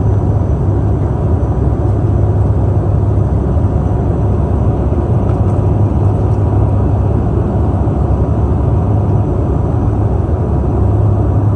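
Cabin noise of a propeller aircraft in flight: a loud, steady engine and propeller drone with a strong low hum. The hum eases a little through the middle and strengthens again near the end.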